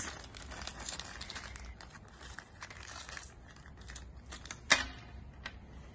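Small clear plastic parts bag crinkling as it is handled and opened by hand to get at the bolts inside, with one sharper click about three-quarters of the way through.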